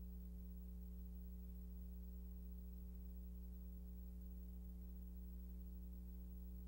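Steady low electrical hum with evenly spaced overtones over faint hiss, unchanging throughout; no other sound.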